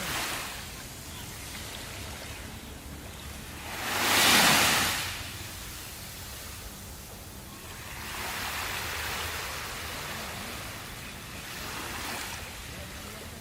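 Sea waves washing in, in slow swells: one loud surge about four seconds in, then gentler ones.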